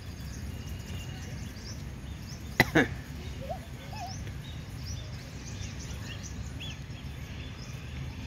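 Scattered bird chirps over a steady low rumble, with one sharp click about two and a half seconds in.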